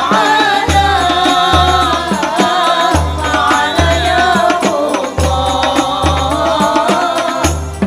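Live hadroh music, Indonesian Islamic devotional singing with frame drums. A lead voice sings a winding melody over hand-drum strokes. Deep bass drum beats fall in pairs about 0.8 s apart.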